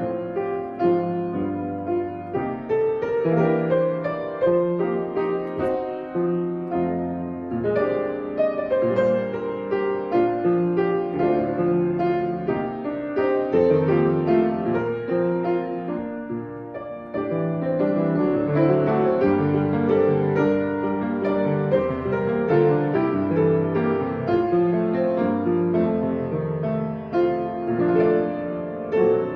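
Instrumental piano music, a steady flow of sustained notes and chords with a brief lull about two-thirds of the way through.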